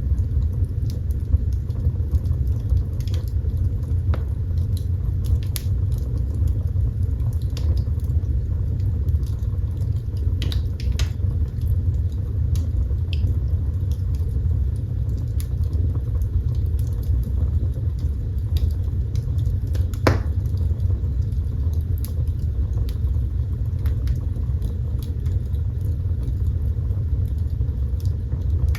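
Wood fire burning in a fireplace: a steady low roar of the flames with scattered crackles and small pops, a louder pop about twenty seconds in.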